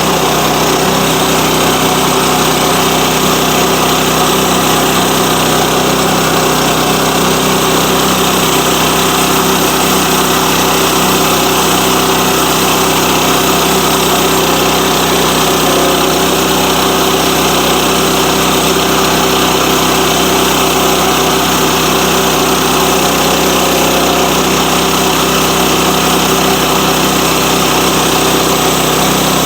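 Sawmill's small gas engine running steadily at an even pitch.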